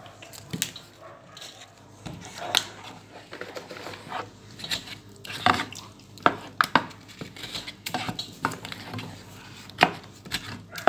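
Dry biscuits being snapped into pieces by hand, a string of sharp, irregular cracks, mixed with a spoon knocking and scraping in a metal pot of thick cocoa mixture.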